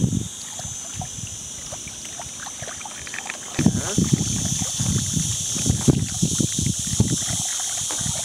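Water splashing and sloshing in a small walled pool, with a run of short splashes and knocks starting about three and a half seconds in, over a steady high hiss.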